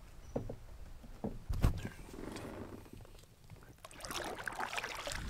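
Canoe paddling: three short thumps in the first two seconds, the loudest about a second and a half in, then from about four seconds in the splash and drip of paddle strokes in the water.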